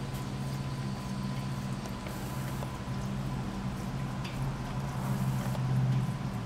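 A coonhound licking and lapping at a block of ice floating in a steel pot of water, with a few faint wet slurps and taps, over a steady low machine hum that swells near the end.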